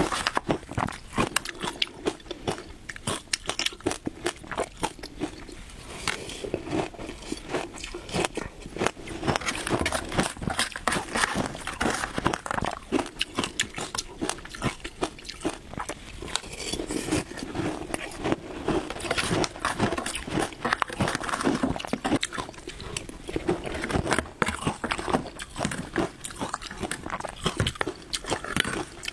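Shaved ice crunched and chewed close to a clip-on microphone: a rapid stream of crisp cracks and crackles that keeps up without a break.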